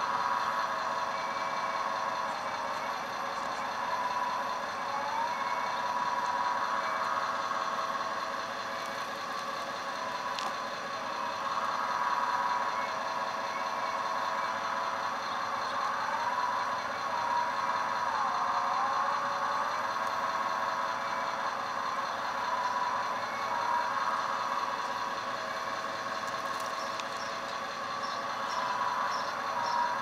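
Hydraulic pump of a 1/14-scale CAT 330F RC excavator whining steadily as the boom and bucket work. Its pitch sags and bends briefly a few times as the hydraulics take load. Faint short high beeps repeat near the end.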